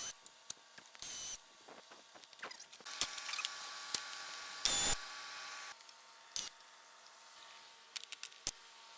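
A cordless power tool, run in four short whirring bursts to spin out bolts. Light metallic clicks and clinks fall between the bursts.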